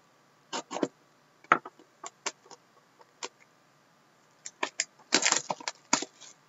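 Plastic shrink wrap on a sealed hockey card box being slit and peeled off: scattered sharp crinkles, then a denser run of crackling about five seconds in.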